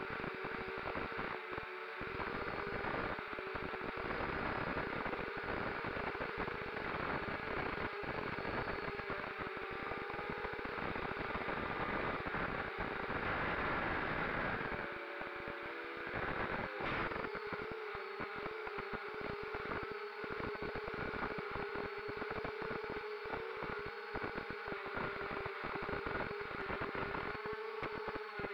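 Brushless motors and propellers of a ZMR250 racing quadcopter, picked up by its onboard camera: a steady whine, its pitch wavering with the throttle, under a hiss of wind and vibration. A sharp click sounds about halfway through.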